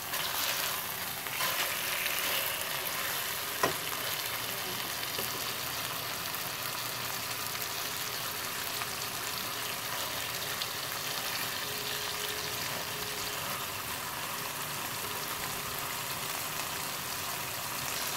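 Boneless chicken leg pan-frying in a little oil, sizzling steadily, with one sharp clack about four seconds in.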